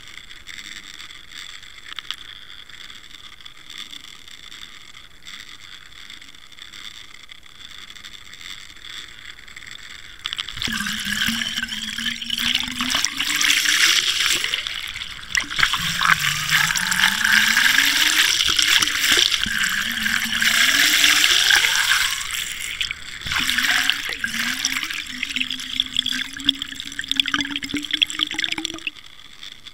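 Water rushing past an underwater camera towed on a fishing line. About ten seconds in it turns into loud churning and bubbling, with a low hum that slides up and down in pitch, and it settles back to a quieter rush near the end.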